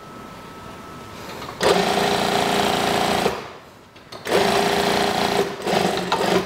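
Brother industrial single-needle lockstitch sewing machine stitching a seam: two steady runs, the first about a second and a half in and the second after a short stop, each lasting about two seconds.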